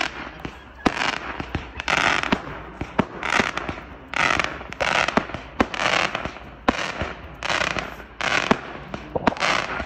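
Aerial fireworks going off in a rapid series: a burst of noise about every three-quarters of a second, with sharp pops in between.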